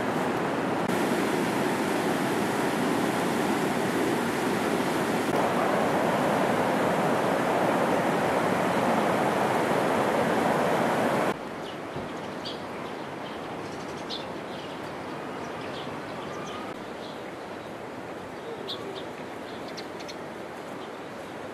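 Steady loud rushing noise, like running water or wind on the microphone, that cuts off suddenly about eleven seconds in. Quieter outdoor ambience follows, with scattered faint short chirps.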